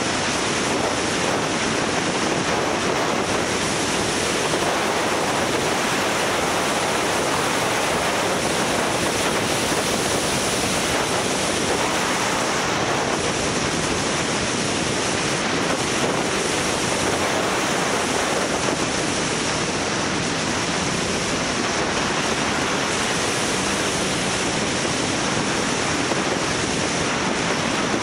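Wind rushing over the microphone of a camera riding on a moving motorcycle: a steady, dense rush with no clear engine note.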